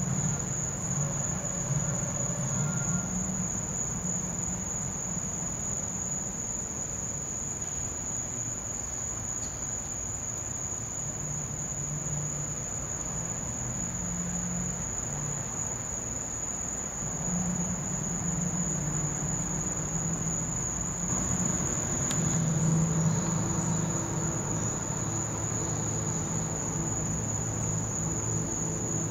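A steady, high-pitched chorus of crickets trilling without a break, with faint low sounds coming and going underneath.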